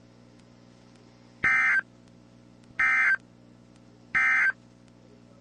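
Three short buzzy data bursts of an Emergency Alert System digital signal, about a second and a half apart: the end-of-message code that closes a NOAA Weather Radio watch broadcast. A faint steady hum sits under them.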